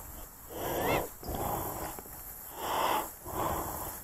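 A person breathing hard, about four loud, rhythmic breaths in and out, each lasting about half a second.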